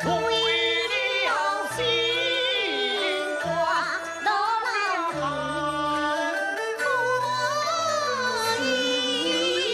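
Gezaixi opera aria: a voice singing with wide vibrato and sliding ornaments over instrumental accompaniment, its bass notes changing every second or so.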